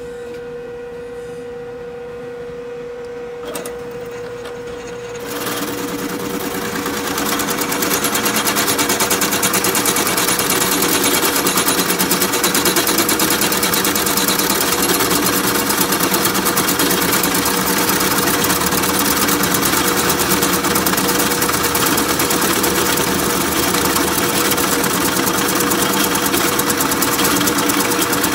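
Drill press motor running with a steady hum, then about five seconds in a power expansive bit bites into the wood and bores with a loud, rough, rapidly repeating cutting sound that holds steady.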